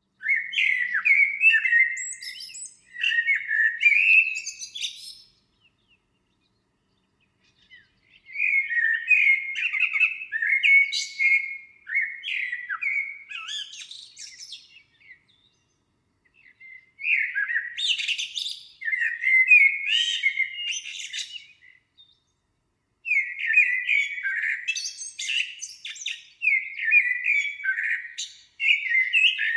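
A songbird singing in long runs of quick chirping notes, four runs separated by silent pauses of about two seconds.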